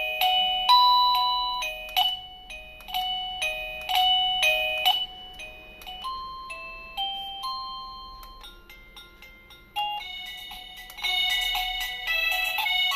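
Wireless doorbell receiver playing its electronic chime melodies, bright beeping notes that strike and fade. It moves through several tunes: a quick one, a slower, sparser one from about six seconds in, and a busier one after about ten seconds.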